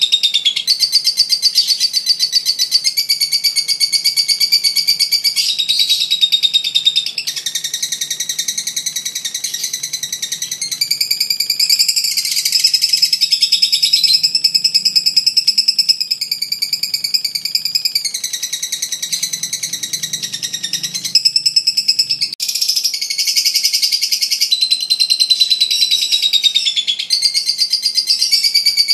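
Lovebird singing its ngekek: a long, high-pitched chattering trill of rapid repeated notes that runs on almost without a break, changing pitch or pausing only briefly a few times.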